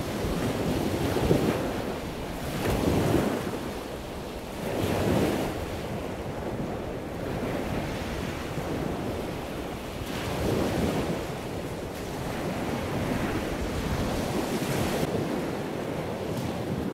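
Surf breaking and washing up a sandy beach, rising and falling every few seconds, with wind buffeting the microphone.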